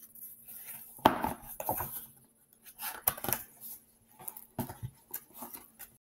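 Hardcover picture book being handled close to the microphone as a page is turned and the book is moved: irregular rustles, taps and clicks, loudest about a second in and again in a cluster near the end.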